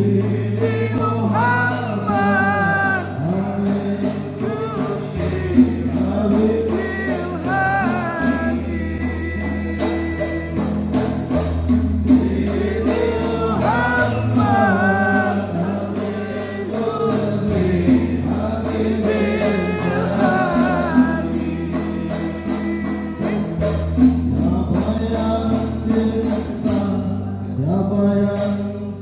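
Devotional song: voices singing a wavering melody over long held bass notes, with a steady jingling percussion beat.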